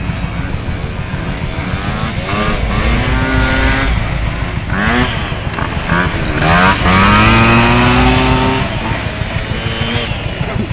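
Small moped and motorcycle engines racing, buzzing over a steady low rumble. Their pitch rises several times as they accelerate, most strongly and loudest in a long climb from about two-thirds of the way in.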